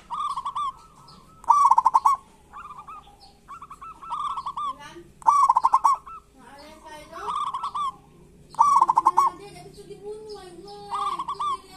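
Zebra doves (perkutut) calling: short, loud rattling bursts repeated every second or two, with softer cooing notes and chirps between them.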